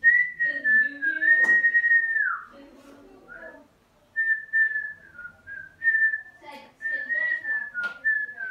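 A person whistling a tune in held notes that step and glide downward, stopping for a moment midway, then going on in shorter notes. Two sharp clicks come through, one early and one near the end.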